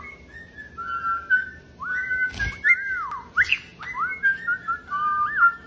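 A pet parrot whistling a tune: a string of clear whistled notes, many starting with a quick upward swoop and then held, in short repeated phrases.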